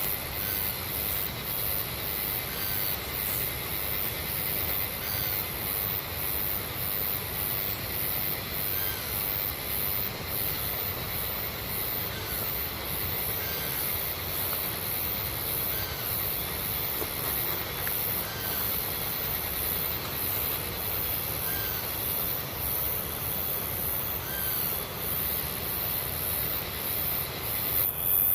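Steady rushing of a mountain river, with a shrill, regularly pulsing sound high above it and faint short rising chirps every couple of seconds.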